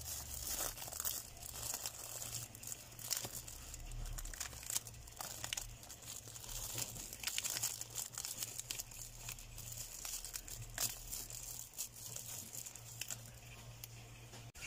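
Plastic shrink wrap crinkling and crackling in irregular bursts as a hand works a small drink bottle free of a plastic-wrapped multipack, with a steady low hum underneath.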